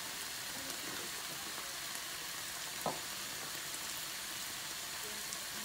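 Mixed vegetables in cream sizzling in a frying pan, a steady hiss, with one light knock about three seconds in.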